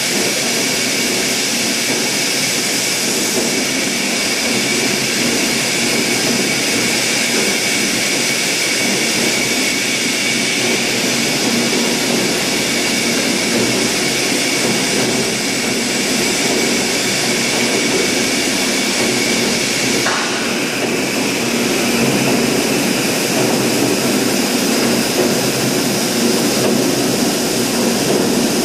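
Steady drone and hiss of a plastic-drum blow-moulding machine running, with a few steady high whining tones on top.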